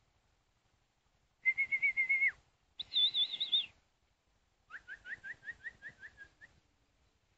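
Bird calls in three whistled phrases: a steady note that drops away at its end, a higher warbling note, then a quick run of about ten rising chirps.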